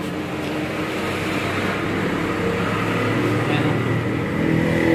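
Hiss from a CRT television's speaker, tuned to a weak, snowy channel, with faint programme sound mixed in. It grows steadily louder as the set comes on.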